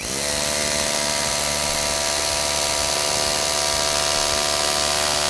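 Handheld electric drill spinning up and drilling a hole, its motor whining at a steady speed over a hiss of cutting. It stops near the end and winds down.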